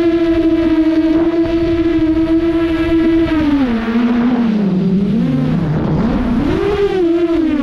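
FPV drone's motors whining at a steady pitch, then dropping in pitch about three and a half seconds in as the throttle comes off for the dive, and swooping up and down as the throttle is worked.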